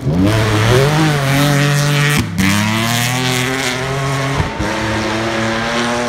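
Rally car engine at full throttle on a gravel stage, revs climbing, with a short break for a gear change about two seconds in, then held at high revs, with a brief lift about four and a half seconds in.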